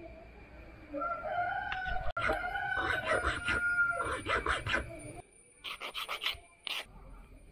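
A rooster crows once, a long crow from about a second in until about four and a half seconds, over the rhythmic rasping strokes of a small coping saw cutting. Near the end comes a quick run of short hand-file strokes.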